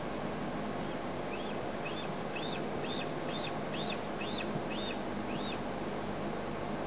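A bird calling a series of about ten short arched whistled notes, two a second, swelling louder towards the middle and then fading: a food-begging call.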